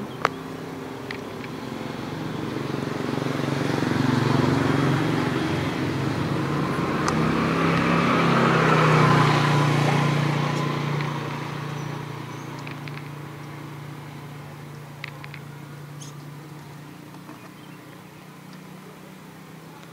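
A motor vehicle passing by. Its engine hum and road noise build over several seconds, are loudest about nine seconds in, then slowly fade away.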